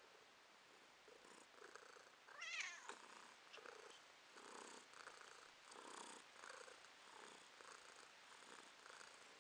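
Domestic tabby cat purring close up, faint and rising and falling in slow pulses with each breath, as it asks to be fed. About two and a half seconds in it gives one brief, wavering high call.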